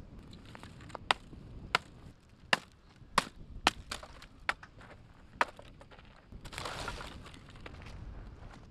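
Hatchet chopping dry branches: about seven sharp, cracking strikes, irregularly spaced, over the first five and a half seconds. About six and a half seconds in comes a short rustle and clatter of dry sticks.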